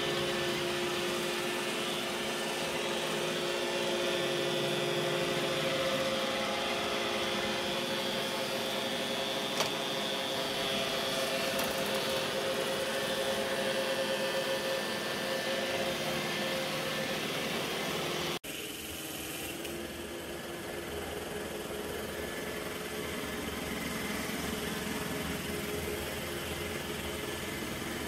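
Robot vacuum running with a steady motor hum and whine. About two-thirds of the way through, the sound cuts off abruptly and a different, steady running vacuum takes over.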